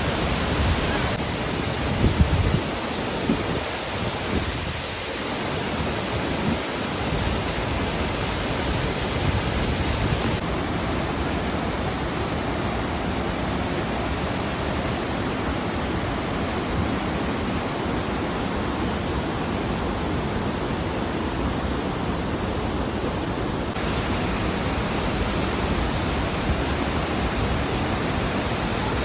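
Burgess Falls waterfall: a steady rush of falling water, with a few low thumps about two seconds in.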